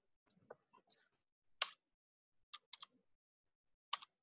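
Faint, scattered keystrokes and clicks at a computer keyboard and mouse: about eight separate sharp taps with uneven gaps, the loudest a little past one and a half seconds in and again near the end.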